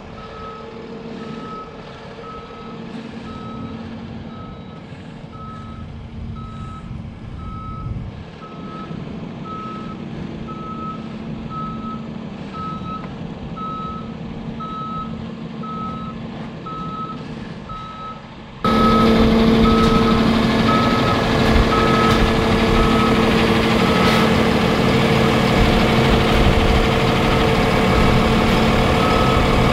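Reverse alarm of a Peterbilt cabover blower truck beeping evenly over its idling diesel engine as the truck backs up onto a trailer. About two-thirds of the way in, the sound jumps much louder and closer.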